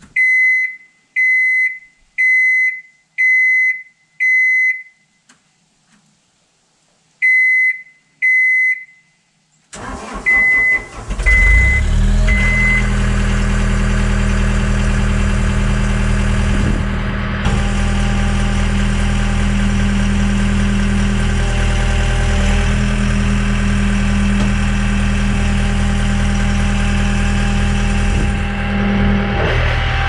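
John Deere 318D skid steer's cab warning beeper sounding with the key on: five short high beeps about a second apart, a pause, then two more. About ten seconds in the diesel engine cranks and starts while the beeper gives a few last beeps, then it settles into a steady idle.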